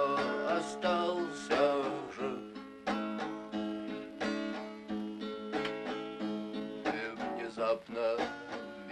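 A man singing to his own strummed acoustic guitar. The voice comes in the first two seconds and again about seven seconds in, with the guitar alone in between.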